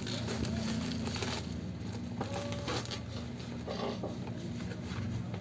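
Rustling and crinkling handling noises, like parcel packaging being handled, over a steady low hum.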